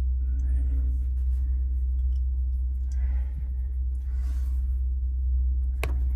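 A steady low hum, with a few faint rustles over it and one sharp click near the end.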